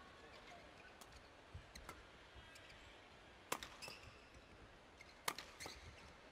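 Badminton rackets striking the shuttlecock during a doubles rally: sharp, short hits over a quiet hall. The two loudest come about three and a half and a little over five seconds in, with fainter hits between.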